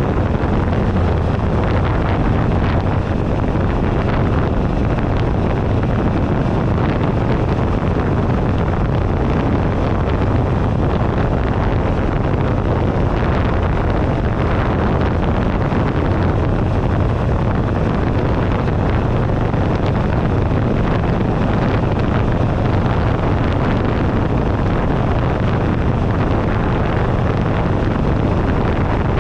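2008 Buell Ulysses XB12XT motorcycle, its 1203 cc V-twin engine running steadily while riding, under heavy wind noise on the handlebar-mounted camera's microphone.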